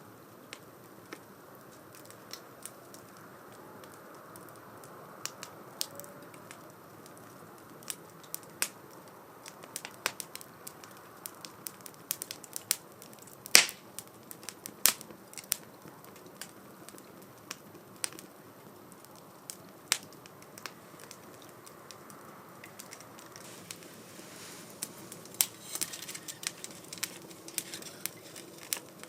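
Wood fire crackling in a 2×4 STOVE fire pit: irregular sharp pops and snaps over a soft, steady rush of flame, with one loud pop about halfway through.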